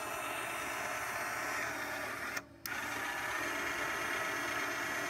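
Jukebox Five automated floppy disk changer's motorized mechanism running with a steady mechanical whir. It stops for a moment about two and a half seconds in, then runs again.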